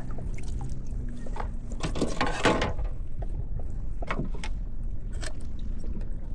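Water splashing and dripping with knocks and rattles as a largemouth bass is handled in a kayak. The loudest knocks cluster about two seconds in, with a few single clicks later over a low steady rumble.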